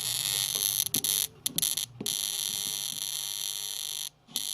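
Sharp R-350E inverter microwave giving off a loud, harsh electrical buzz that breaks off briefly a few times. The buzz comes from arcing at a completely unsoldered joint on the incoming 240-volt power circuit: it is shorting out.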